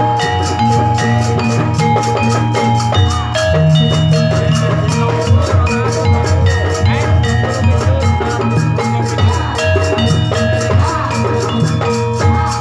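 Javanese gamelan music: bronze metallophones and gongs ringing held notes over steady drumming.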